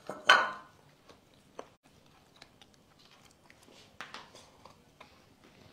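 Quiet tabletop sounds of food and dishes being handled: a short breathy burst just after the start, then a few light, scattered clicks and taps.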